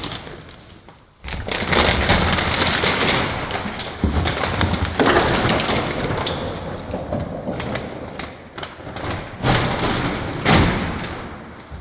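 Plastic freezer drawer of an LG French door refrigerator being handled and slid on its glide, with thuds and rattling that start up suddenly several times.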